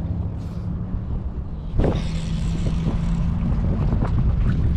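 A boat engine idling with a steady low hum, and wind buffeting the microphone from about two seconds in.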